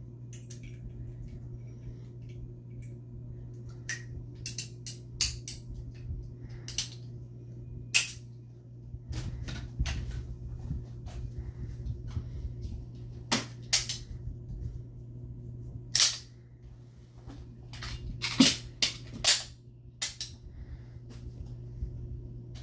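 Irregular sharp metallic clicks and clacks of handguns being drawn from holsters and handled, with the loudest clacks in the second half, over a steady low hum.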